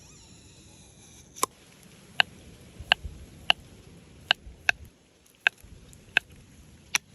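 A series of about nine sharp taps or knocks, one roughly every three-quarters of a second, starting about a second and a half in.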